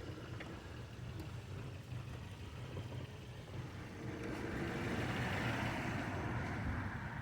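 A motor vehicle engine running steadily, with a low pulsing hum; about halfway through a wash of noise rises over it.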